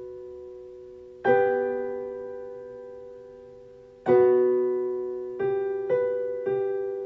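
Slow, soft piano music. Sustained chords are struck about three seconds apart and each is left to ring and fade, then three quicker chords come near the end.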